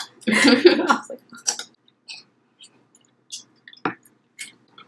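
A short burst of voice at the start, then scattered wet mouth sounds of people eating noodles: slurps, chewing and lip smacks. One louder smack comes just before the end.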